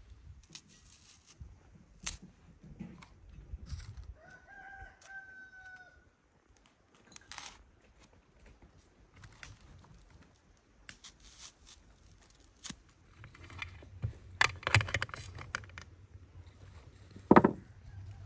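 Vegetables being threaded onto a metal skewer: scattered clicks, crunches and clinks of the skewer. A rooster crows once about four seconds in, and there is a sharp knock near the end, the loudest sound.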